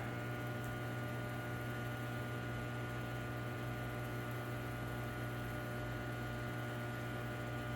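Steady low electrical mains hum with a stack of fainter, higher steady tones above it.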